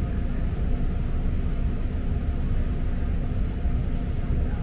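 Steady low rumble and hum inside a BART train car standing at a station, with no change in level.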